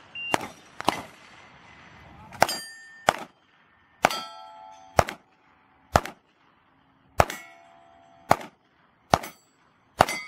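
Handgun shots fired one after another at steel plate targets, about ten of them roughly a second apart. Several shots are followed by the ringing clang of a struck steel plate, the sign of a hit.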